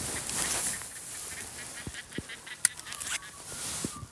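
Fishing rod and spinning reel being handled and cast: rustling, a few sharp clicks with one louder click past the middle, and a high hiss near the end as the cast goes out.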